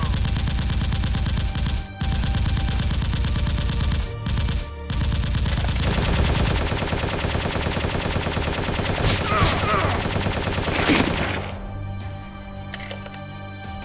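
Fast automatic gunfire sound effects laid over Nerf blasters, firing in long bursts with two brief breaks and stopping about eleven seconds in. Background music runs underneath and is left alone at the end.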